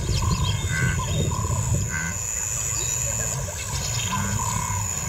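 Bush ambience: short bird calls repeated every second or so over a steady high insect whine and a low rumbling noise.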